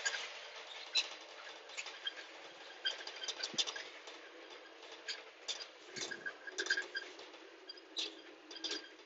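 Ride inside a moving bus: a steady hiss with irregular light clicks and rattles, a few sharper ones standing out.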